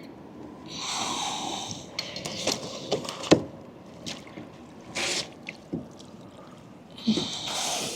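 Water splashing and dripping in short bursts with several sharp knocks, as a big flathead is landed and handled on a kayak.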